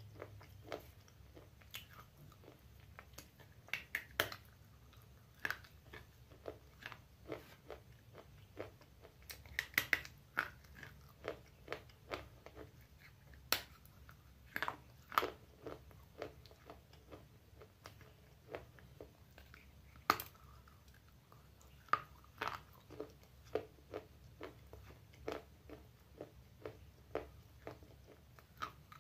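Pieces of broken baked clay pot being bitten and chewed: dry, sharp crunches and cracks, irregular at about one or two a second, with a few louder snaps among them.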